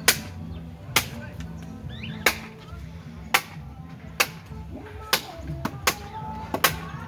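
Firecrackers going off in a string of about ten sharp, loud cracks, roughly one a second, with a few in quick succession near the end, over background music.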